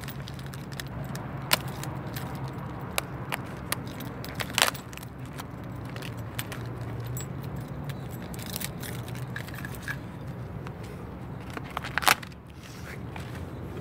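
A bunch of keys on a neck lanyard jangling, with scattered sharp clicks as hands work a sponge and scissors. The loudest clicks come about four and a half seconds and twelve seconds in, over a steady low rumble.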